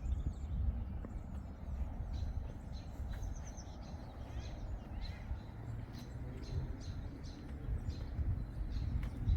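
Small birds chirping in many short, high notes over a steady low rumble.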